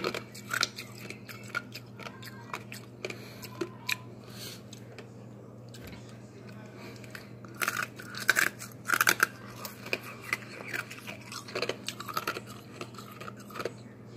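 Hard ice being bitten and chewed, a string of sharp crunches that come thickest and loudest about halfway through.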